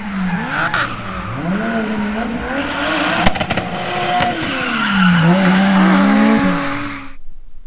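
Turbocharged Mercedes M104 straight-six in a drift car, revving up and down hard while the rear tyres spin and squeal in a smoky burnout. It cuts off suddenly about seven seconds in.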